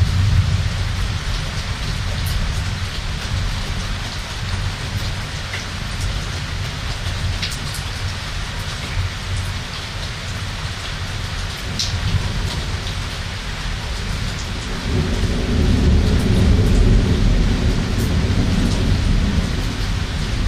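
Summer thunderstorm: steady heavy rain hissing, with scattered sharp drops pattering close by. A low rolling thunder rumble grows louder about three-quarters of the way through.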